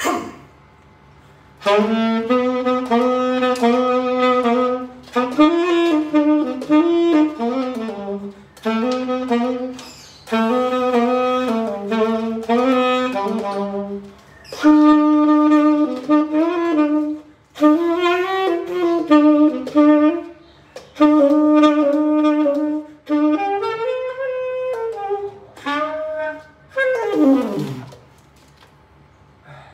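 A tenor saxophone playing a melody in phrases of long held notes with short breaths between, ending with a sliding fall in pitch near the end.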